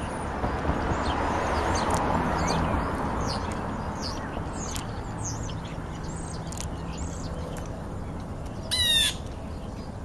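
European starlings calling: scattered short high whistles and chirps, with one loud, harsh squawk near the end.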